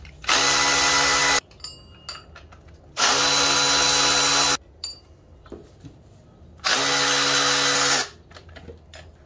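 Power tool running in three steady bursts of about a second or more each, spinning out the three 13 mm bolts that hold a power steering pump to the engine, with small metallic clicks between the bursts.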